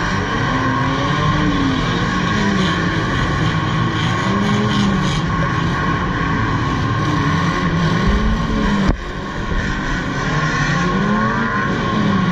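Several old banger-racing cars' engines revving up and down at once, overlapping with no single engine holding a steady pitch. A single sharp bang stands out about nine seconds in, typical of a car hitting the wall or another car.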